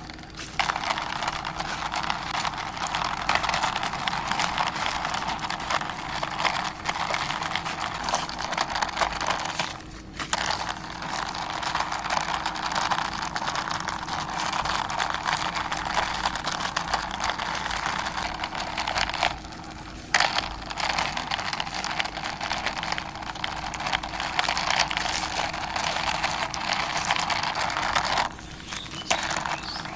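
A plastic toy helicopter pushed along a surface by hand, its wheels and body making a steady gritty scraping, rolling noise. The noise breaks off briefly three times, about ten, nineteen and twenty-eight seconds in.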